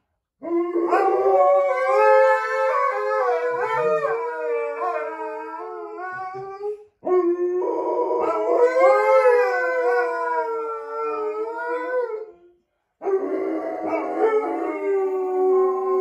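Two Alaskan Malamutes howling together, their long wavering howls overlapping. There are three bouts, with short breaks about seven and twelve and a half seconds in.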